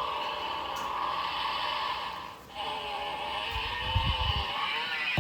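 Vehicle sound effects from the small speaker of a children's slide-activated sound toy: a steady tone for about two seconds, then after a short break a second tone with wavering pitch and a low rumble underneath.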